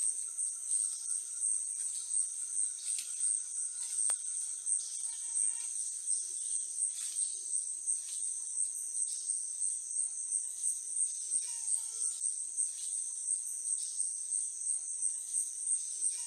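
A high, steady chorus of forest insects that pulses two or three times a second.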